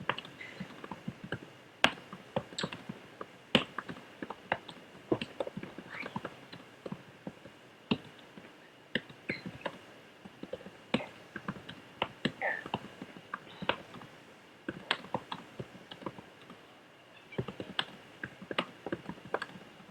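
Computer keyboard being typed on quickly: an uneven run of key clicks, several a second, with a few louder strokes standing out.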